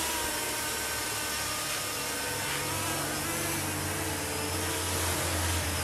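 Mini tricopter's three electric motors and propellers buzzing steadily as it flies low, their pitch drifting a little as the throttle changes.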